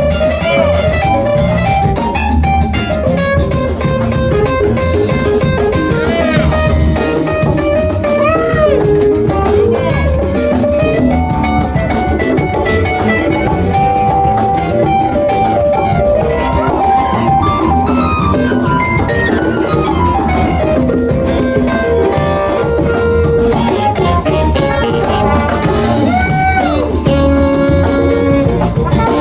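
Funk band playing live: drum kit and electric bass hold a steady groove under a lead line with bent and sliding notes.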